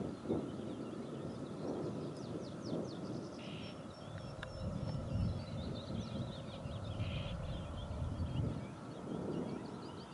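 Birds singing: many quick, high chirps and short trills over a low, uneven rumble.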